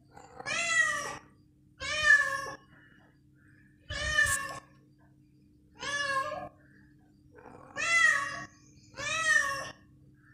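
Domestic cat meowing repeatedly: six drawn-out meows, each rising and then falling in pitch, one every one to two seconds.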